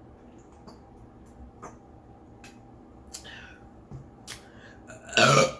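A few faint clicks and small eating noises, then a loud burp near the end lasting about half a second.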